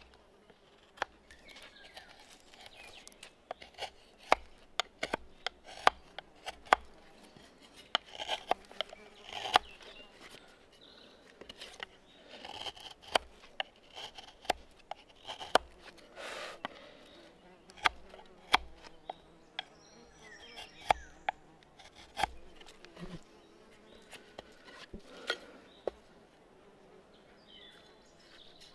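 Irregular sharp clicks and knocks with short scraping strokes: hand tools working wood while a wooden frame saw is being built. Insects buzz faintly in the background.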